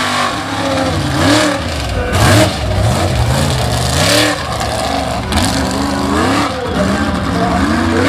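High-horsepower lifted pickup mud truck engine revving hard, its pitch climbing and dropping again and again as the truck is driven over the dirt mounds.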